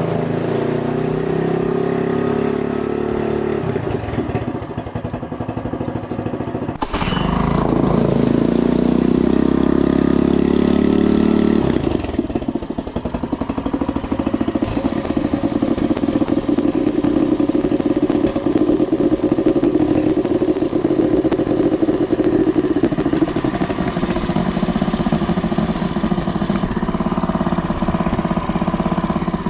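Honda BF2DH 2 hp single-cylinder four-stroke outboard motor running on its stand during its first run. It runs loud and steady, and its sound changes twice, about seven and twelve seconds in.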